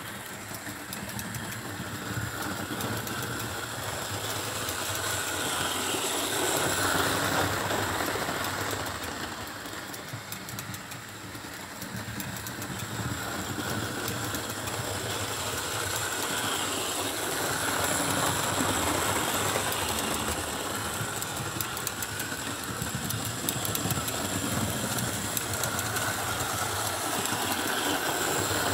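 Electric model train running on the layout track, its motor whirring with a steady high whine and its wheels clicking over the rails. The sound grows louder and fainter as the train comes nearer and moves away.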